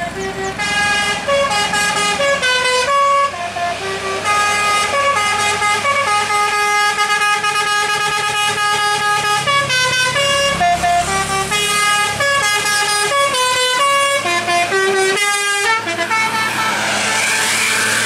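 Tour bus's multi-tone 'telolet' horn playing a quick melody, note after note. The tune stops about two seconds before the end, and the rush of the bus passing close follows.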